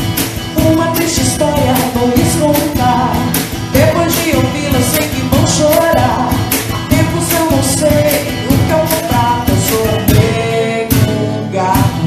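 A band playing a song, with a voice singing over a steady beat.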